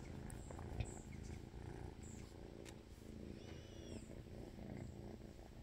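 Kitten purring faintly and steadily while being stroked, close to the microphone.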